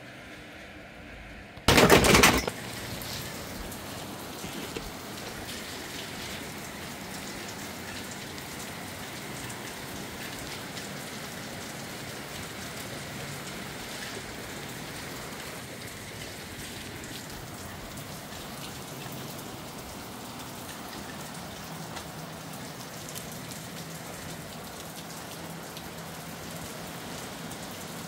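Steady rain falling, an even hiss, with a brief loud burst of noise about two seconds in.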